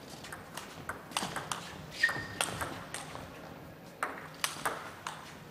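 Table tennis rally: the ball clicking sharply off the rackets and the table in quick alternation, about a dozen hits at uneven spacing. A short high squeak sounds about two seconds in.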